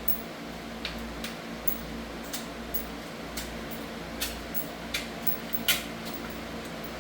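Light metallic clicks and clinks of bolts and tools being handled during an engine teardown, irregular, with the loudest clink about six seconds in, over a steady low hum.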